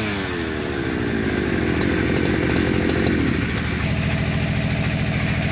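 Petrol chainsaw coming off the throttle after a cut, its engine pitch falling steadily as it winds down, then settling into a steady idle about four seconds in.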